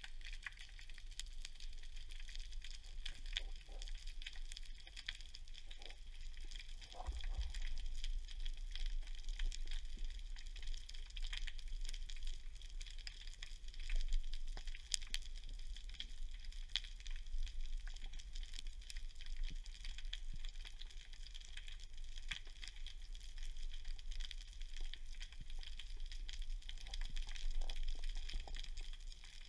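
Underwater ambience over a rocky reef: a steady, dense crackle of tiny clicks with a low rumble underneath, growing a little louder about seven seconds in.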